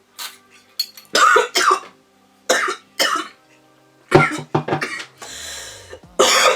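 A person coughing: a run of short, harsh coughs, several in a row.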